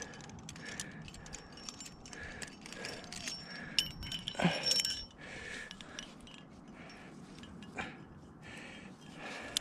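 Aluminium climbing carabiners and gear on a harness rack clinking and jangling as protection in the crack is clipped. The sharpest clinks, with a brief metallic ring, come a little before the middle, and a single click follows near the end.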